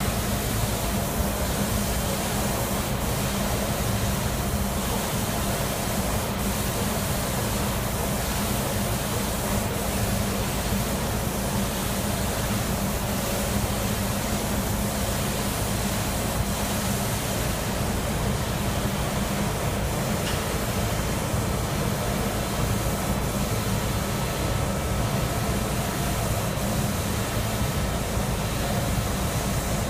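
Automatic spray-painting line running: a steady hiss of the two reciprocator-mounted spray guns atomising paint, over a constant low hum of the booth's machinery.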